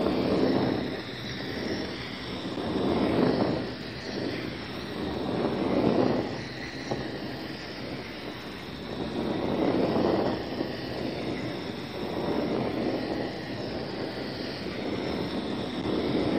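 Handheld gas torch burning with a steady rushing hiss as its flame is swept over HDPE boards, flame-treating the surface so the adhesive will bond. The sound swells and fades every few seconds.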